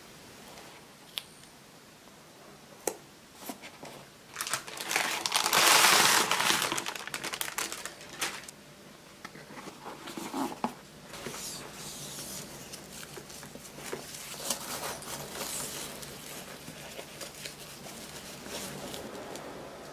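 Folded card-paper gift box being handled: a few light taps, then loud crinkling and rustling of the stiff paper flaps, strongest about five to seven seconds in, followed by softer rustling as the flaps are closed and a ribbon is tied around the box.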